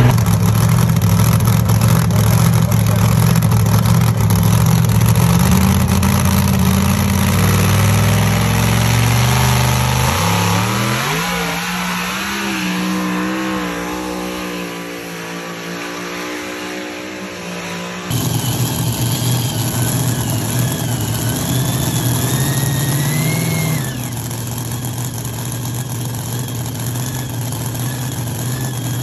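Modified pulling tractor engine running loud under load, fading as it moves away and then revving higher, followed after cuts by other engine sounds; near the end, a supercharged engine on a golf cart running steadily.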